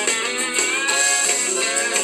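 Instrumental break of a country song, led by guitar.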